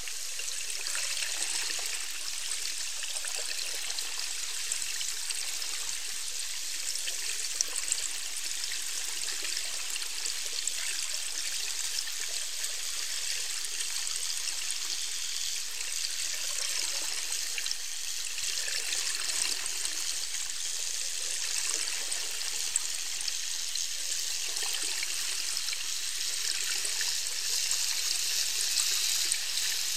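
Steady, crackling hiss of moving water picked up underwater, with no whale calls standing out.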